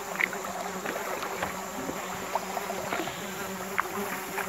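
A steady low insect buzz with scattered short high chirps, over the ambience of a rainforest river.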